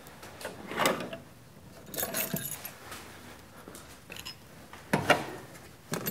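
Scattered light metallic clinks and rattles of tools and machine parts being handled, with louder clatters about one, two and five seconds in.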